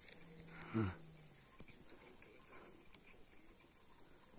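Steady high-pitched chirring of insects in the grass, with a short falling pitched call just under a second in.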